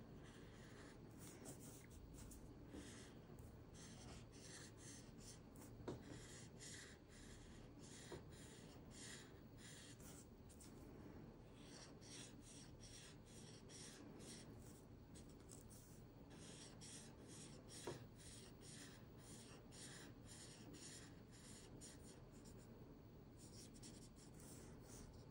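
Felt-tip marker nib rubbing across paper in quick, repeated scratchy strokes as a light warm gray layer of shading is laid down, coming in runs with short pauses between them. Two brief, sharper ticks stand out above the strokes.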